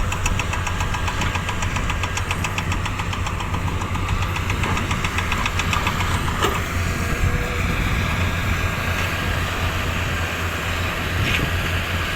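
Diesel engine of a heavy earthmoving machine running steadily with a low hum, a fast even clatter through the first few seconds, and a single knock about six and a half seconds in.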